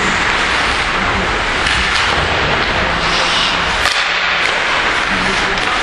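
Ice hockey play heard from rinkside: a steady scraping hiss of skates on the ice, with a few sharp stick-and-puck clacks about four seconds in.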